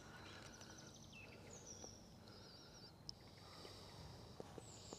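Faint woodland birdsong: a few distant high chirps and a short wavering trill, with a couple of faint clicks near the end.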